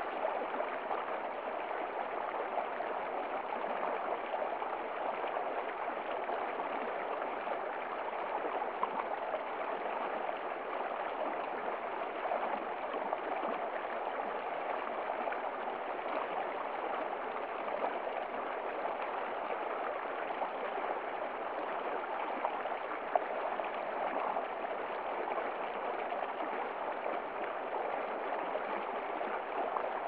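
Shallow winter stream running over rocks between ice- and snow-covered stones: a steady, even rush of flowing water.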